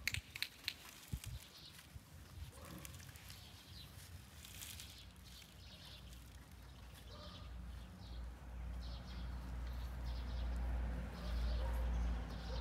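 Birds chirping over and over, with a few short low animal calls and a low rumble that grows louder from about halfway.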